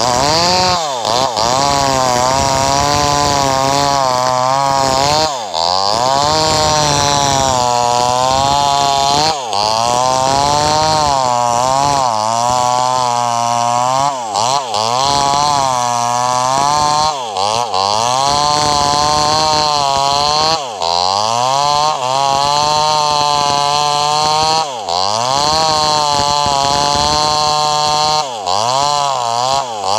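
Two-stroke chainsaw running at full throttle while ripping a log lengthwise, its engine pitch dropping sharply under load and climbing back every three to four seconds as the chain bites and is eased off.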